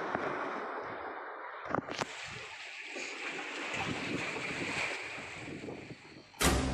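Wind buffeting the microphone over sea waves washing against a concrete-block breakwater, as a steady noise. Near the end, music comes in suddenly with a heavy drum hit.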